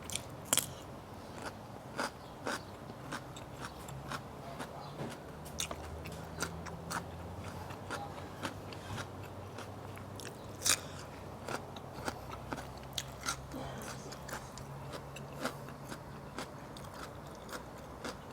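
A person chewing crunchy food, with irregular sharp crunches about once or twice a second: a mouthful of fermented fish mixed with raw sliced eggplant, lemongrass and shallot.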